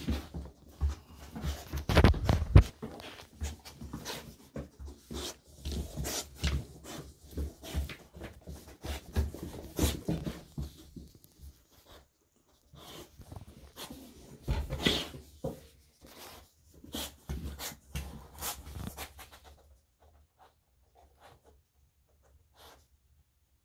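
Pit bull dam whelping on blankets: irregular rustles and clicks as she moves and tends a puppy just born in its sac. The sounds are busiest at first and die away to near quiet near the end.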